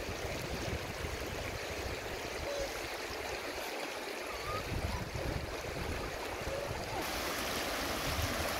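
River water running steadily over rocks in a shallow, fast stream.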